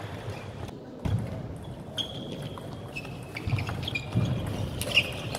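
Table tennis rally: sharp clicks of the celluloid/plastic ball striking bats and table, about one a second from about a second in, with a few short high squeaks and the murmur of a large hall.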